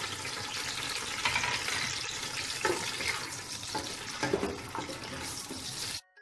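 Sliced onions sizzling in hot oil in a pot, stirred with a wooden spoon that knocks lightly against the pot a few times. The sound cuts off suddenly near the end.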